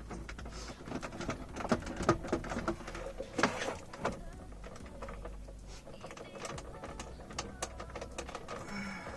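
Hands working a plastic wiring connector loose from the hazard-light switch behind a car's dashboard trim: a string of small plastic clicks and knocks, busiest and loudest in the first four seconds, with a short scrape about three and a half seconds in.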